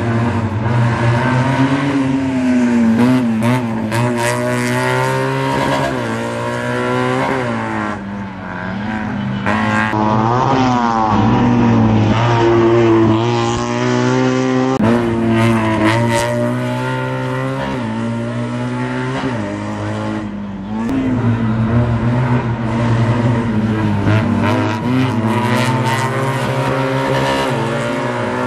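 Racing Fiat 500's engine driven hard, revving up and dropping back again and again as the car accelerates and lifts off.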